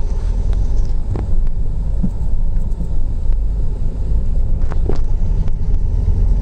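Steady low road and engine rumble heard from inside a moving car's cabin, with a few short clicks about a second in and again near the end.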